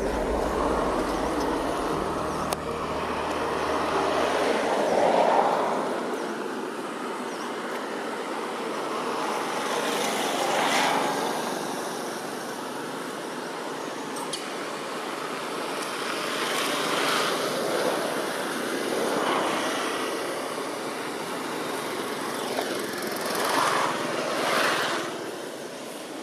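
Road traffic passing by: a steady hiss with one vehicle after another swelling up and fading away every few seconds, loudest about five seconds in and again near the end.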